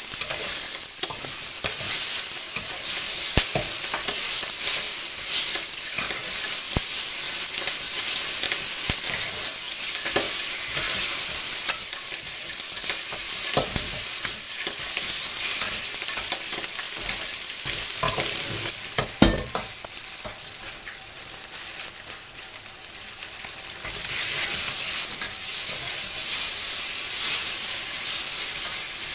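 Pork pieces sizzling in hot oil in a wok on high heat, stirred and turned with a spatula that knocks against the pan now and then. The sizzle drops off for a few seconds about three quarters of the way through, then comes back louder.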